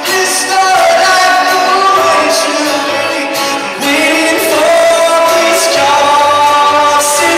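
A man singing a pop song live with instrumental accompaniment, holding long notes.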